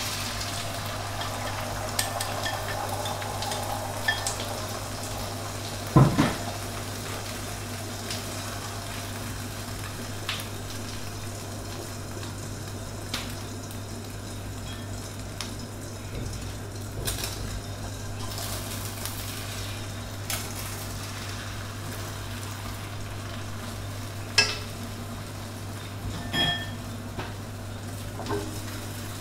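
Beaten eggs frying in hot oil in a nonstick wok: a steady sizzle, strongest in the first few seconds after they go in. A few sharp knocks and clinks of kitchenware come through, the loudest about six seconds in.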